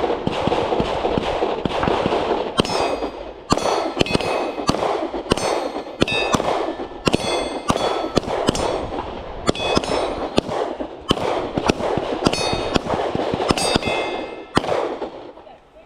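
A long string of pistol shots at a steady pace. Many of the shots are followed by a brief high metallic ring.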